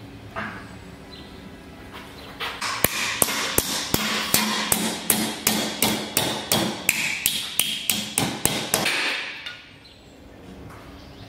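Hammer blows on a strip of 2 mm aluminium sheet clamped in a bench vise, folding it over to form a tab. There are about twenty quick metallic strikes at roughly three a second, beginning a couple of seconds in and stopping about two seconds before the end.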